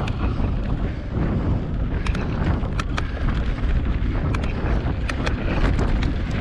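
Wind buffeting the camera microphone over the rumble of mountain bike tyres on a loose gravel trail, with many sharp clicks and rattles from the bike jolting over rough ground.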